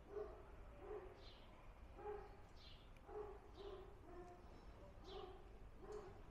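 Faint animal calls repeating over and over, one or two a second, each a short low note with a thin, high, falling squeak above it.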